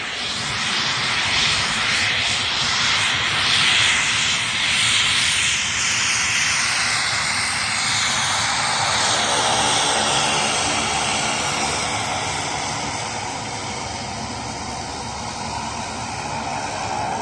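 Single-engine turboprop plane taxiing, a steady engine and propeller noise with a high whine that falls in pitch over the first several seconds, then settles into a steady hum.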